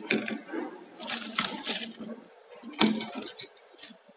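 Crisp fried palm fritters being set down one after another on a ceramic plate: a few light taps and clinks against the plate, with a dry crackle from the crust.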